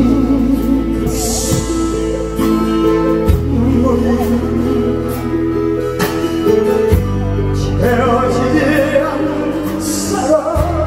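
Amplified Korean popular song played loud through a PA: a man singing over guitar-led backing with a steady beat.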